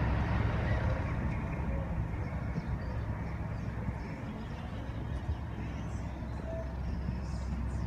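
A motor vehicle passing in the street: a low engine and road rumble that fades over the first few seconds, leaving a steadier low street background.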